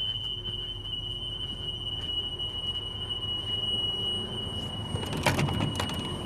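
School bus emergency exit alarm buzzer sounding one steady high-pitched tone, the sign that an emergency exit is open. A short clatter about five seconds in.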